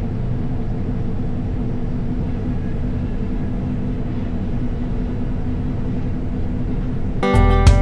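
Heavy harvest machinery running steadily, a constant engine drone with a low hum. Country guitar music cuts in abruptly near the end.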